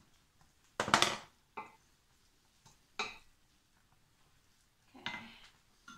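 Wooden spoon knocking and scraping against a stainless steel pot while stirring spaghetti: four short clatters, the loudest about a second in.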